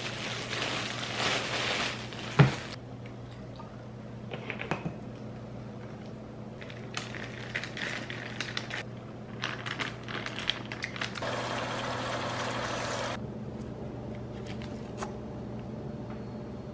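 A plastic bread bag crinkling as a loaf is handled, then a single sharp knock. Later come scattered light clicks and clinks, and about two seconds of steady rushing noise, over a faint steady low hum.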